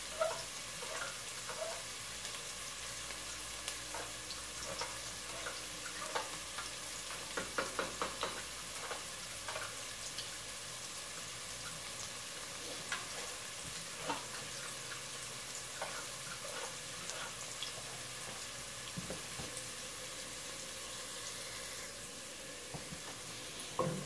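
Chopped onion and garlic sizzling steadily in hot vegetable oil in a pot as they sauté, with scattered light clicks, a cluster of them about seven to eight seconds in.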